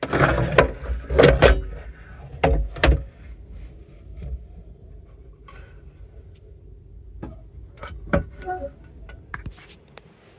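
A run of knocks, bumps and rattles from someone moving about and handling things in an Amtrak sleeper roomette, over a low steady rumble. The loudest clatters come in the first three seconds, with a few sharper clicks toward the end.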